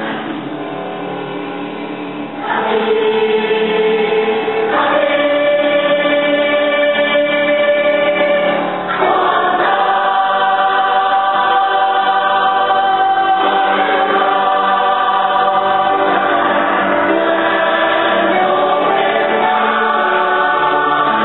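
Mixed-voice choir singing sustained chords unaccompanied, getting louder about two and a half seconds in and again about nine seconds in.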